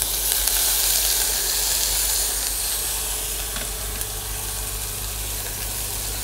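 Ginger-green chilli paste sizzling in hot oil with cumin seeds in a pressure cooker as it is stirred with a silicone spatula. The sizzle is loudest just after the paste goes in and eases a little over the following seconds.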